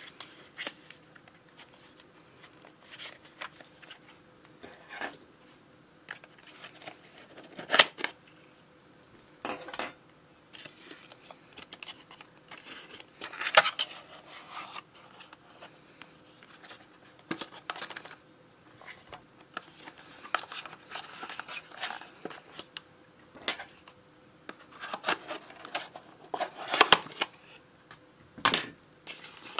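A small cardboard box being opened by hand: paper and card rustling and scraping as the seal and flaps are worked open, with a few sharp snaps of card spread through.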